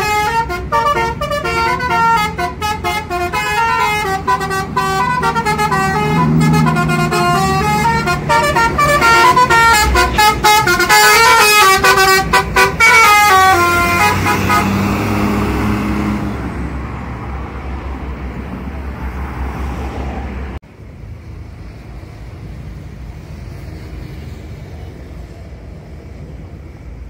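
A bus's Basuri telolet horn, a set of roof-mounted horn trumpets playing a quick stepping melody, sounds loudly for about fourteen seconds over a running bus engine. The horn then stops and the engine runs on until the sound drops suddenly about twenty seconds in, leaving quieter steady background noise.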